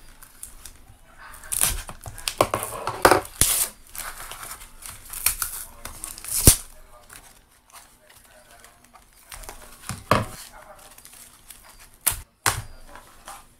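A parcel's packing tape and plastic wrapping being cut with scissors and torn open by hand: irregular tearing and crinkling rustles with scattered sharp snips and clicks.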